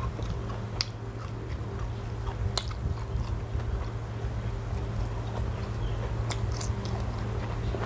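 A person chewing and biting food close to the microphone, with a few sharp clicks, over a steady low hum.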